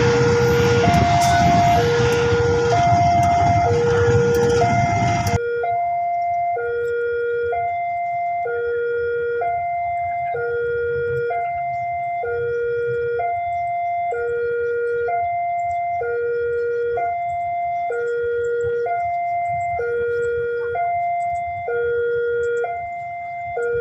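Railway level-crossing warning alarm sounding a steady two-tone pattern, a lower and a higher tone alternating about once a second, signalling a train approaching or passing. For the first five seconds a loud passing-train noise runs under it, then cuts off abruptly, leaving the alarm alone.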